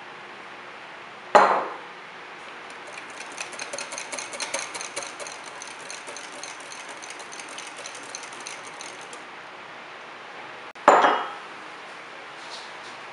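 A wire whisk beating mousse in a glass bowl, with a rapid run of light clicks against the glass for several seconds. Two loud knocks of bowls or utensils come about a second in and near the end.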